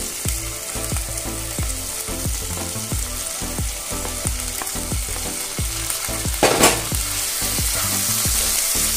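Chopped tomatoes and slit green chillies going into hot mustard oil and spice paste in a frying pan, sizzling steadily. There is a brief louder scrape about six and a half seconds in.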